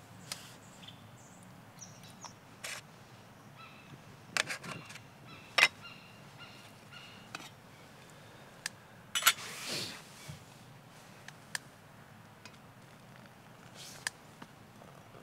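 Scattered light clinks and knocks of metal camp cookware being handled, a steel mug and cup set down and picked up; a dozen or so sharp taps, a few loud ones near the middle.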